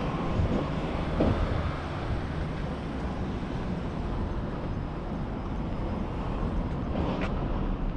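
Steady outdoor road noise: traffic on the road mixed with wind rumbling on the microphone.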